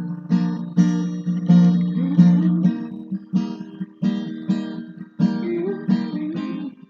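Acoustic guitar strummed in a steady rhythm of chords, about one stroke every half to three-quarters of a second, with no singing.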